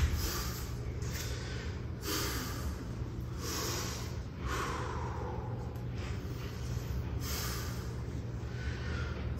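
A man breathing hard through nose and mouth, a series of loud breaths about every one to two seconds, recovering after sets of kettlebell swings. A steady low hum runs underneath.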